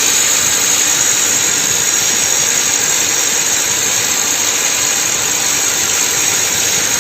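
A machine running steadily and loudly, an even mechanical noise with a bright, hissing edge and no breaks.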